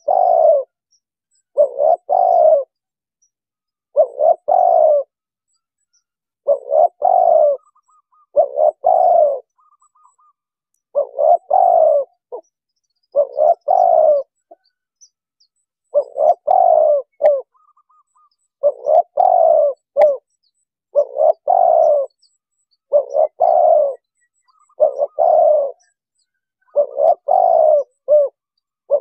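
Spotted dove (tekukur) cooing, a series of short multi-note coo phrases repeated about every two seconds.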